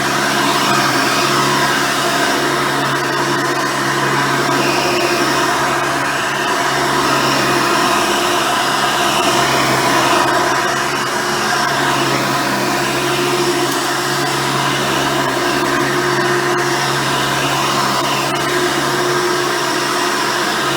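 Hoover Elite upright vacuum, with its original 7-amp motor, 7-blade fan and a single-row brush roll, running steadily through a full-house vacuuming. It is a continuous motor hum and whine whose level swells and eases slightly.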